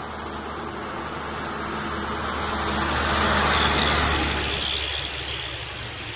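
A road vehicle passing close by: its engine and tyre noise swells to a peak about three and a half seconds in, then fades away.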